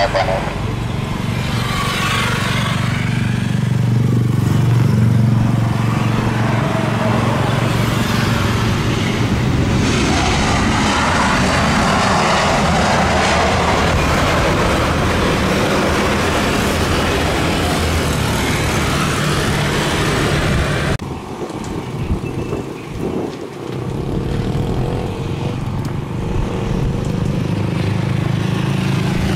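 Jet airliner engine noise on approach, a loud steady rumble mixed with road traffic, with sweeping tones in the first few seconds. About two-thirds of the way through the sound drops and thins abruptly.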